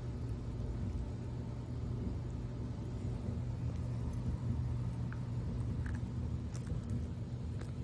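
A steady low mechanical hum, with a few faint clicks in the second half.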